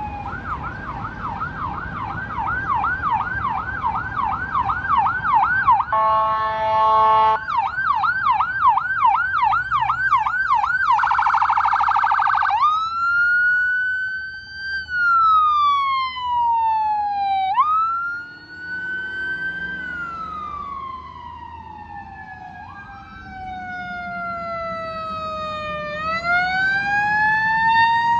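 Sirens of a fire department ambulance and engine running on a call. First comes a fast yelp of about four sweeps a second, broken once by a short horn blast. Then a very rapid warble, and then a slow wail that rises and falls twice.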